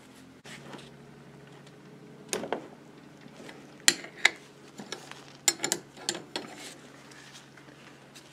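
Sharp metal clinks and knocks of an open-end wrench on the bolts of a Ford Model A starter drive, scattered over a few seconds with the loudest near the middle, as the bolts are worked loose. A low steady hum runs underneath.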